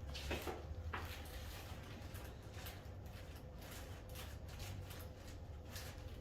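Soft rustling and scattered light knocks as a patient is handled on a chiropractic table during a neck adjustment, over a low steady hum.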